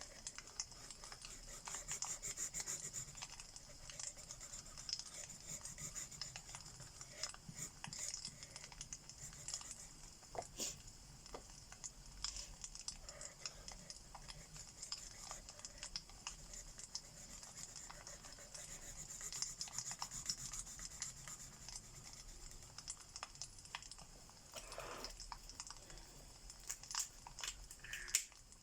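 Alcohol marker nibs rubbing and scratching across paper in short repeated strokes, over the steady hiss and scattered pops of a crackling fireplace.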